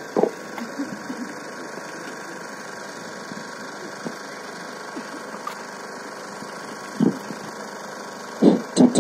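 A steady mechanical hum runs throughout. A few short, louder sounds break in just after the start, about seven seconds in, and three more close together near the end.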